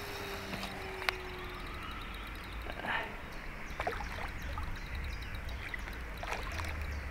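Water sloshing and splashing at the bank, with a few sharper splashes, as a hooked carp is played in close.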